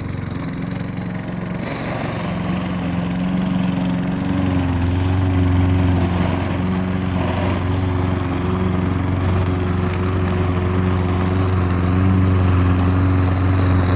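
Petrol walk-behind lawn mower engine running steadily while mowing, its low note getting stronger about four seconds in and the sound growing slowly louder.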